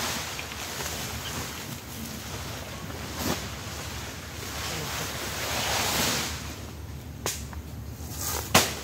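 Wind buffeting the microphone and rushing through the surrounding trees, swelling about five to six seconds in and easing off, with a few sharp knocks near the end.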